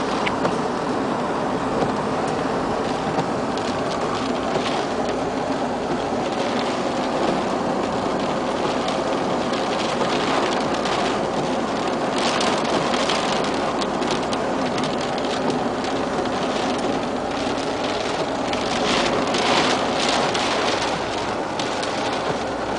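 Heavy storm rain and wind on a car, heard from inside the car. A steady rushing noise runs throughout, with stretches of sharper rain hits on the glass and body about halfway through and again toward the end.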